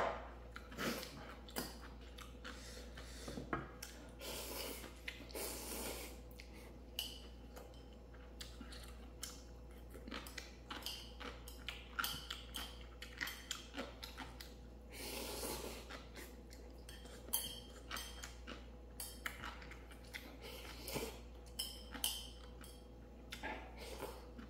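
A person eating ramen: utensils clicking and tapping against a bowl, with chewing and a few longer slurps of noodles.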